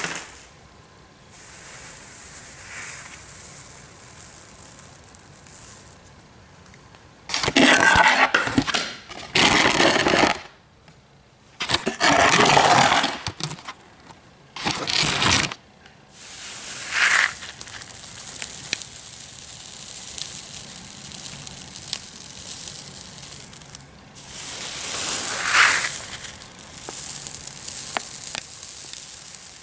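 Tiny aquarium substrate rocks rattling, scraping and crunching as they are handled. Several loud rushes of one to three seconds stand out over a quieter steady rustle.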